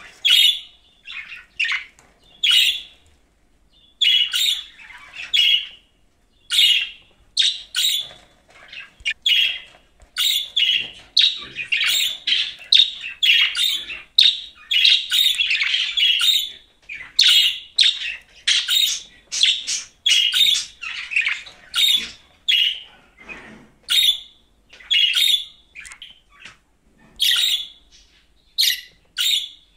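Budgerigar chirping and squawking in quick runs of short calls, a few to the second, with two brief pauses a few seconds in.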